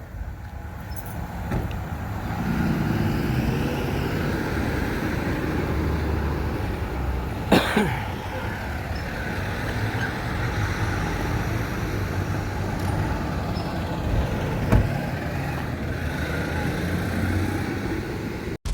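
A motor vehicle's engine running with a steady low rumble, and one short sharp sound about seven and a half seconds in.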